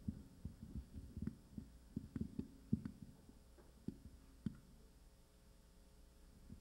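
Soft, irregular low thumps and knocks, about three a second, that die away after about four and a half seconds, leaving only a faint steady room hum.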